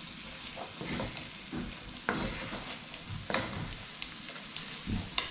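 Curried conch sizzling in a frying pan while chopped vegetables are scraped off a cutting board into it with a wooden spoon, which knocks sharply several times.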